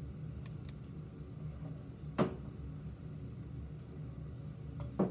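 Sharp clicks and knocks of a plastic-and-metal curling iron being handled: a few faint ticks, one loud knock about two seconds in and another near the end, over a steady low hum.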